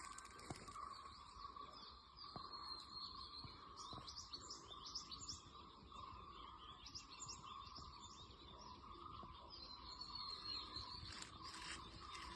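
Faint birds chirping and twittering, many short quick calls one after another, over a steady high hum.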